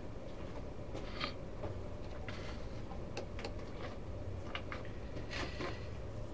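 Scattered faint clicks and small taps, a little stronger about a second in, over a steady low hum.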